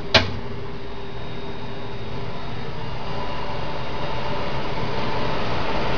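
Steady fan and hum noise from power equipment in a UPS room, with faint steady tones, growing slightly louder. A single sharp click sounds just after the start as the UPS input isolation switch is thrown.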